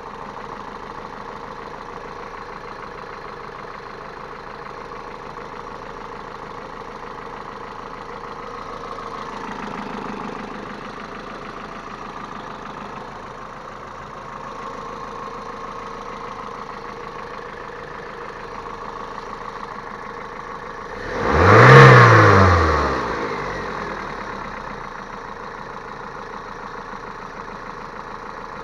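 Geely Emgrand EC7's 1.8-litre four-cylinder engine idling, revving up slightly about ten seconds in and blipped sharply once about three-quarters of the way through, the revs shooting up and dropping back within about two seconds. The engine has a knock that the owner is recording.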